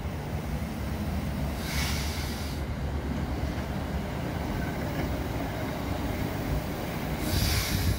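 Saddle-tank steam locomotive running slowly bunker-first, its wheels and motion making a steady low rumble. Steam hisses in a short burst about two seconds in and again, louder, near the end.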